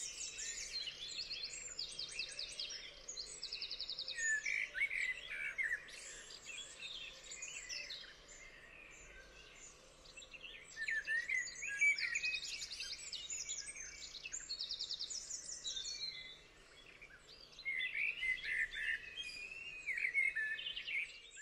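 Songbirds singing and calling, several voices overlapping, with fast high trills among shorter chirps. The song comes in bursts, dropping away twice for a couple of seconds.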